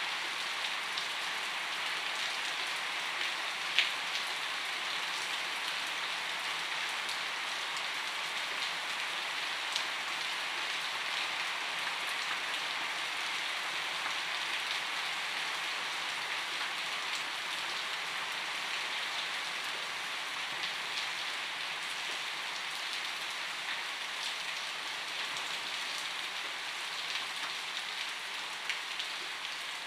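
Steady gentle rainfall, an even hiss of rain with scattered single drops ticking through it; one sharper drip stands out about four seconds in.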